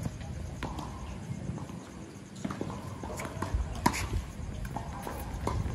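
Footsteps and scattered light taps on a hard tennis court, irregular and spread out.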